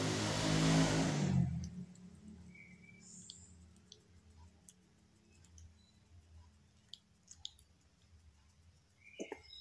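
Background music stops about a second and a half in. After that come faint, scattered small clicks from a kitten licking and sucking, with a few together near the end.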